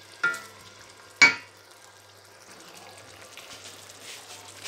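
Onions and tomatoes sizzling in a stainless-steel wok as they are stirred with a wooden spatula. The spatula knocks against the wok twice, about a quarter-second and just over a second in, the second knock the loudest, with a brief metallic ring.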